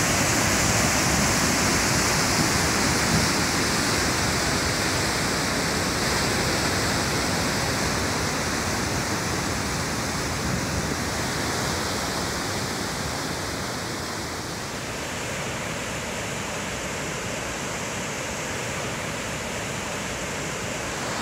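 Waterfall of glacial meltwater crashing through a rock gorge: a steady, dense rush of white water that eases slightly in loudness about halfway through.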